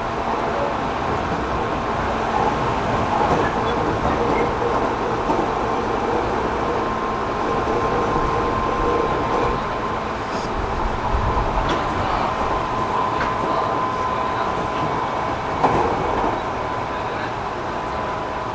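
Interior running sound of a JR 205 series electric commuter train between stations: a steady rumble of wheels on rail with a steady high whine running through it. A few sharp clicks come in the second half.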